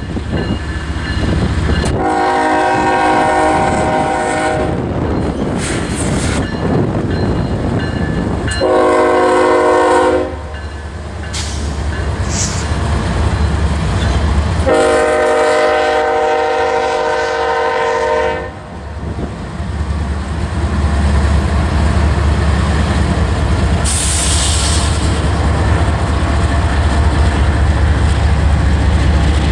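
Air horn of a Norfolk Southern GE ES44AC diesel locomotive leading a freight train: a long blast, a short one, then another long one. The locomotives' diesel engines and wheels rumble loudly as they pass close by.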